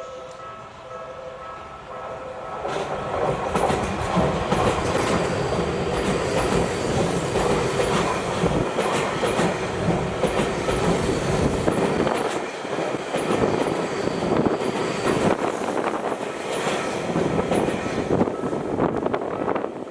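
A Tokyu Toyoko Line electric commuter train passes over a level crossing, its wheels clattering over the rails. It comes in loud about two to three seconds in and runs on to near the end. Before it arrives, steady ringing tones are heard, typical of the crossing's warning alarm.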